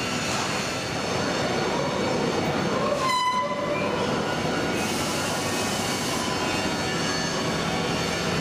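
Steady mechanical din of a working foundry hall, a dense machinery and ventilation noise with faint hums running through it. About three seconds in, it briefly thins and a clear whining tone with overtones sounds.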